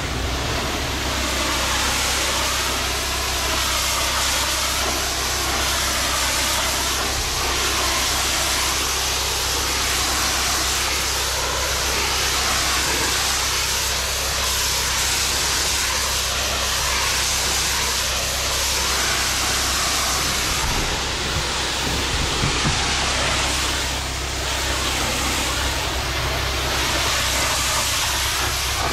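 Pressure washer running, its high-pressure water jet hissing steadily against concrete retaining-wall blocks over a steady low drone from the machine. The hiss wavers slowly in tone as the spray sweeps across the wall.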